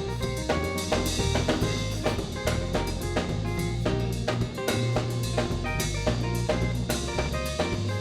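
A church praise band plays an upbeat instrumental dance groove: a drum kit keeps a steady beat over bass and pitched instrument lines, with no singing.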